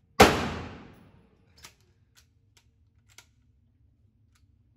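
A single gunshot about a quarter second in, its report fading away over about a second, followed by a few faint clicks.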